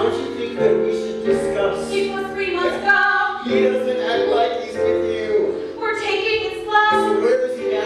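Live musical-theatre number: cast members singing held notes over a band accompaniment.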